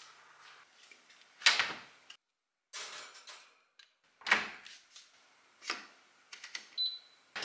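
Kitchen appliance handling: a knock as the fridge is dealt with, then a built-in oven door thudding shut, followed by a few small clicks from turning the oven's control knob and a short high electronic beep near the end.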